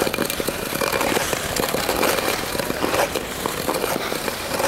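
Ice skate blades scraping along outdoor canal ice, with a dense run of small clicks and crackles from the blades.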